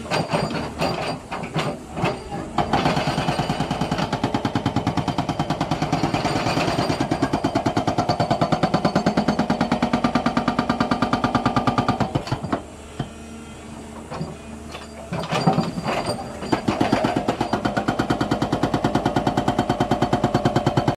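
Hydraulic rock breaker on a Doosan 225LCA excavator hammering rock in rapid, even blows, with the excavator's engine running underneath. The hammering stops for a few seconds just past the middle, leaving the engine sound alone, then starts again.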